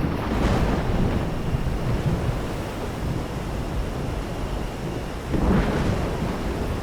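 Steady rain with low rolling thunder. The rumble swells twice: just after the start and again about five and a half seconds in.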